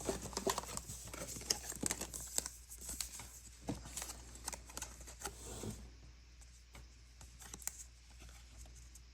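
Rustling, crinkling and light clicks of Pokémon cards and packaging being handled, busy at first and thinning out after about six seconds.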